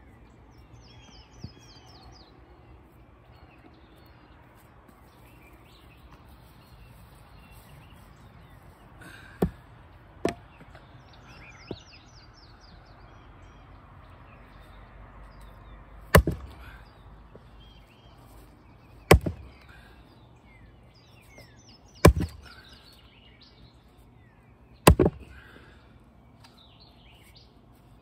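Axe blows on knotty crotch-wood rounds being split for firewood: a couple of lighter knocks partway through, then heavy strikes about three seconds apart through the second half. Birds chirp in the background.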